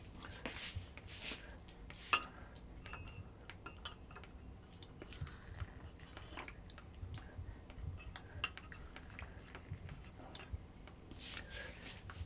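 Scattered small clicks and light clinks, as of objects being handled, with one sharper click about two seconds in and a few short soft hisses.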